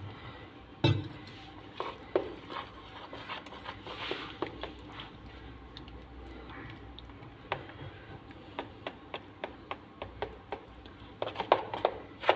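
Metal spoon stirring thick gram-flour batter in a plastic bowl, with irregular clicks and scrapes of the spoon against the bowl, as a little water is worked in to thin the batter. A sharper knock comes about a second in.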